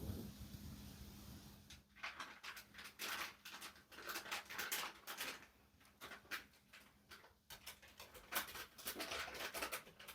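Wood fire in a fireplace crackling, with irregular clusters of sharp crackles from about two seconds in. A low rumble fades out in the first couple of seconds.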